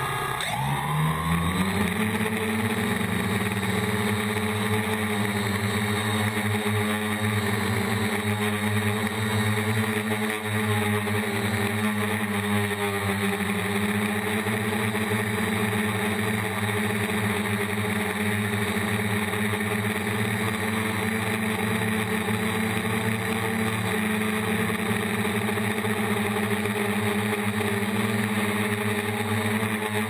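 A DJI Flame Wheel F450 quadcopter's four brushless motors and 8-inch propellers spinning up from rest, rising in pitch over the first two seconds as it lifts off, then a steady multi-tone whine as it flies, picked up close by the camera mounted on the frame.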